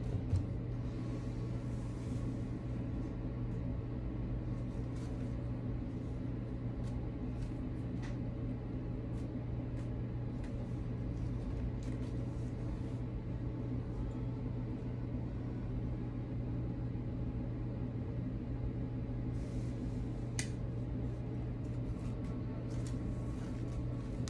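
A steady low hum fills the room, with faint rustles and light clicks as artificial rose stems are handled, one a little sharper about twenty seconds in.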